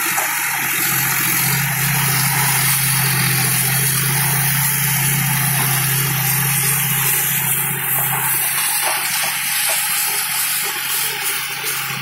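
John Deere 5045D tractor's three-cylinder diesel engine running steadily under load while the rear rotavator churns through banana stalks and dry leaves, under a loud, steady rushing hiss.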